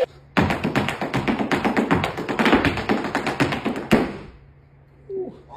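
Hard dance shoes beating rapid, dense taps on a concrete floor in an Irish-style hard-shoe step, stopping abruptly about four seconds in.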